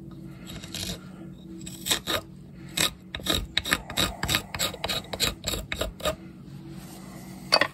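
Hook knife scooping out seasoned ash wood: a quick series of short, sharp scraping cuts, with one more stroke near the end, over a faint steady hum.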